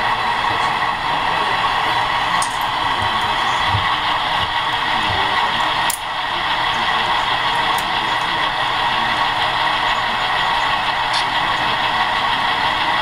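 Steady diesel engine drone from the sound decoders of HO-scale model diesel locomotives idling on the layout, played through their small speakers, with a few faint clicks.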